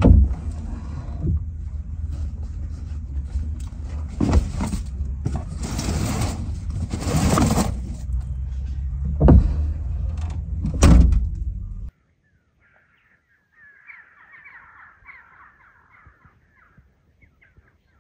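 Dry brushwood rustling and knocking as it is pushed into the back of a Lada 2104 estate, over a steady low rumble, then the tailgate slamming shut with a loud thud about eleven seconds in. After a sudden cut, a few faint crow caws.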